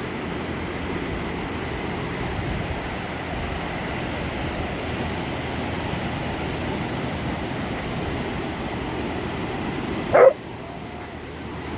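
A dog barks once, a short sharp bark about ten seconds in, over a steady wash of surf and wind noise.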